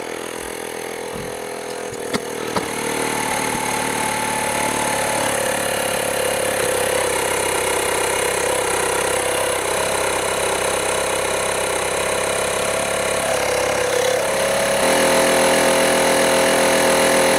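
Kensun plug-in portable air compressor running steadily as it pumps air into a water heater expansion tank's air chamber toward a preset 82 psi. It gets a little louder about two and a half seconds in and again near the end.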